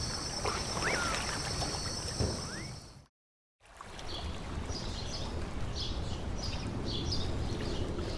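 Outdoor night ambience: a steady high insect drone with two short rising whistles. About three seconds in, the sound drops to silence for half a second. Daytime ambience follows, with small birds chirping repeatedly over a low rumble.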